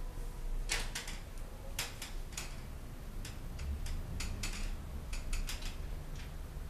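Irregular sharp clicks and light knocks from a wooden wardrobe being opened and rummaged through, its door and the things inside knocking.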